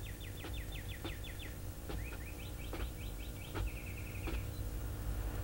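High chirping in trills of quick falling chirps, about seven a second, in runs of roughly a second with short gaps. A few soft taps come in between.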